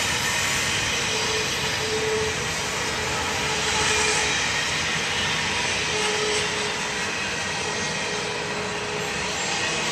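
Double-stack intermodal freight train's well cars rolling past at speed: a steady rushing roar of wheels on rail, with a faint whine that comes and goes.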